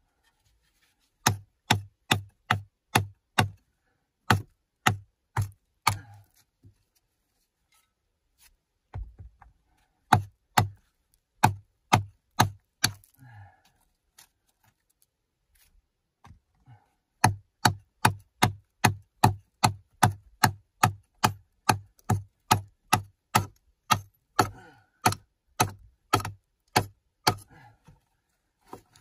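A hand tool striking over and over at the packed earth and soft rock of a dugout cave wall, chipping it away at about two blows a second. The blows come in three runs broken by short pauses, the last and longest run starting about seventeen seconds in.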